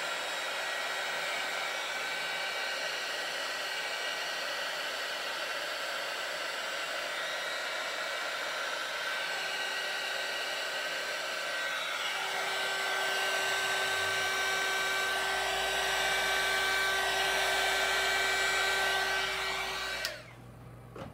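Electric heat gun blowing hot air over freshly poured resin to blend and marble the pigments. It runs steadily with a faint whine, grows a little louder about two-thirds of the way through, and cuts off abruptly near the end.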